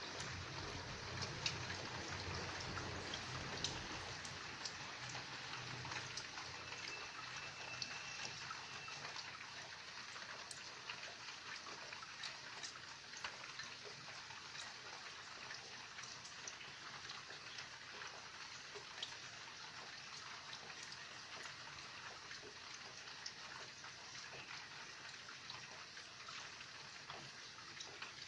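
Steady rain: a hiss of rainfall with many separate drops tapping, slowly getting a little quieter.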